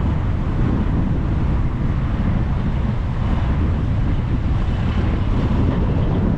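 Car driving on a highway: steady road rumble of tyres and wind, with no changes or separate events.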